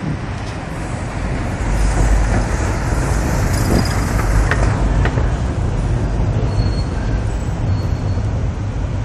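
Street traffic with a steady low rumble. A black taxi cab passes close by in the first half, its tyre and engine noise swelling and then fading.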